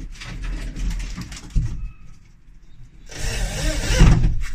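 Cordless drill-driver running in two bursts, driving screws into a plywood wall, with a sharp knock about a second and a half in between them.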